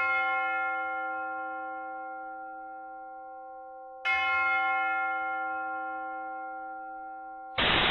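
A bell struck twice, about four seconds apart, each strike ringing on and fading slowly. Near the end a sudden burst of loud static hiss cuts in.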